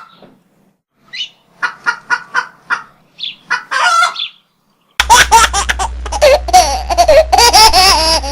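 Chicken clucking sound effect: a quick run of short clucks. About five seconds in it cuts abruptly to loud laughter over a low hum.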